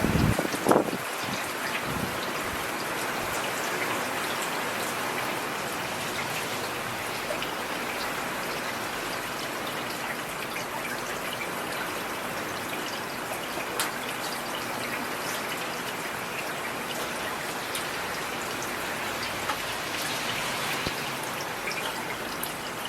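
Steady rain falling on a street, an even hiss with scattered sharper drop ticks. A brief loud low thump comes about a second in.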